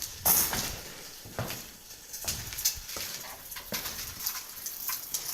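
Footsteps crunching and scraping over debris on the floor of an abandoned building, an irregular series of rough steps about a second apart.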